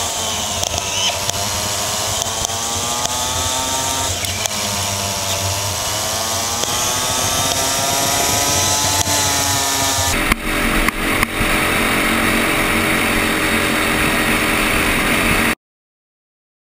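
Kart engine heard from the driver's seat, its pitch falling and rising twice as the kart brakes for corners and accelerates out. About ten seconds in the sound changes abruptly to a steadier engine note with a few clicks, then cuts to silence near the end.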